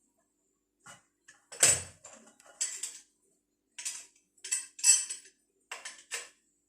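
Plumbing tools and plastic pipe parts knocking and scraping as they are handled: about ten short, sharp clatters, the loudest, with a dull thud, about a second and a half in.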